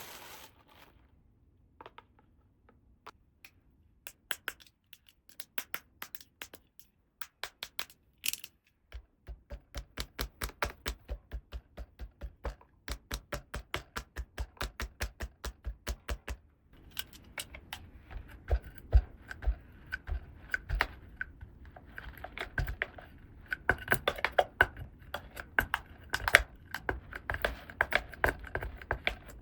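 Small plastic toy pieces being handled: scattered clicks and taps, then a fast even run of clicking for several seconds from about nine seconds in, then busier clicking and rustling handling.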